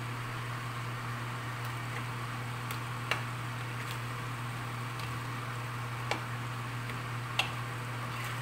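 A spatula stirring a stew in a stainless steel pan, clicking against the pan a few times, loudest about three, six and seven seconds in, over a steady low hum.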